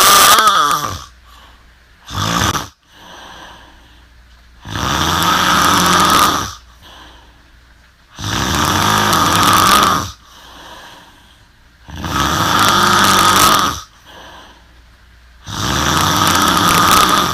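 A young woman snoring hard in her sleep: long, loud snores of about two seconds each come roughly every three and a half seconds, with quieter breaths between them.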